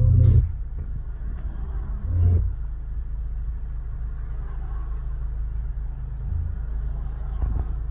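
Low, steady rumble inside a car's cabin as it creeps along in queuing traffic, with car radio music cutting off just after the start.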